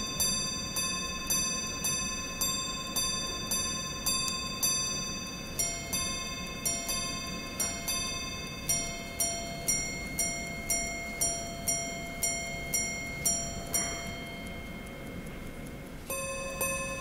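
Bexei Grand Sonnerie wristwatch striking on its gongs: bright, ringing metallic strikes about twice a second. About six seconds in the notes switch to a different pitch. The strikes stop around fourteen seconds, then start again on the first notes near the end.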